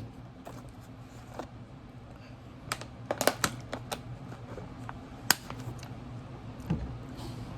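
Scattered light clicks and taps at an uneven pace, a few of them sharper, over a low steady hum.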